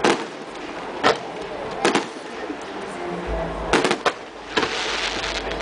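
Aerial firework shells bursting overhead: sharp bangs about a second apart, then a quick cluster of three nearly four seconds in, over a crackling haze. From about three seconds in a low steady hum with pitched tones runs underneath.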